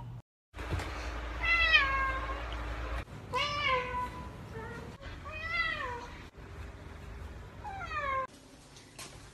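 Domestic cat meowing four times, about two seconds apart. Each meow is drawn out and falls in pitch at its end.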